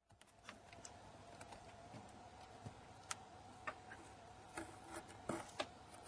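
Faint, irregular light ticks and rubbing as a cat bites and tugs a plastic string against a cardboard cat box, about eight ticks in all, over a faint steady tone.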